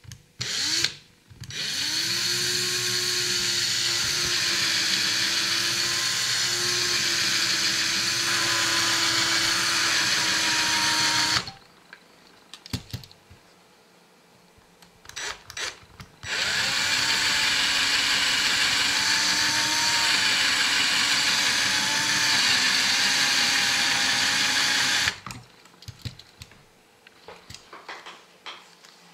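Cordless drill drilling out the rivet on the baseplate of a die-cast Corgi toy car. After a short burst, the motor whine rises as it spins up and runs steadily for about ten seconds, stops with a couple of brief trigger blips, and then runs again for about nine seconds. Small clicks follow as the drill is put down.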